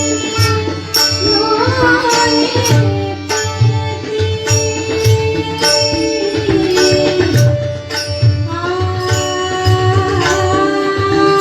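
Marathi devotional bhajan music: long held melodic notes, some with wavering turns, over low hand-drum strokes, with sharp percussive strikes keeping a steady beat about every second.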